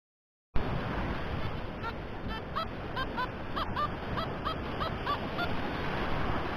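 Wind buffeting the microphone with surf behind it, and through the middle a run of short rising chirps, about two a second.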